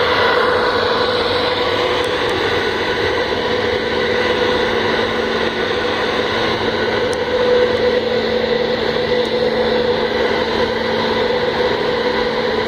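A ferry's engines and on-board machinery running steadily, a constant drone with a steady hum, heard from on board as the ship moves along the berth.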